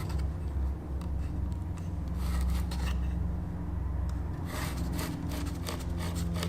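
Handling noise from a Work Sharp Ken Onion Edition belt sharpener being adjusted by hand: light rubbing, scraping and small clicks as the belt tracking is set, over a steady low hum.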